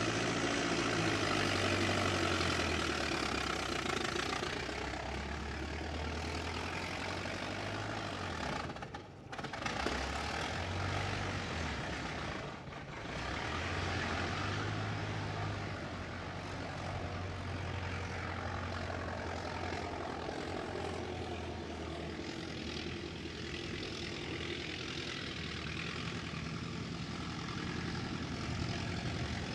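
A 1920s American car's engine running at a steady pace while driving, with a low, even drone. The sound drops briefly twice, about nine and about twelve seconds in.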